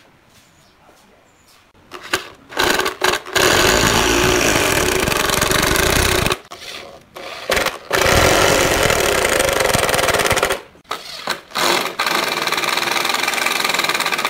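Cordless impact driver driving screws into pallet wood: a few short bursts, then a sustained run of rapid hammering as the screw goes in, three times over.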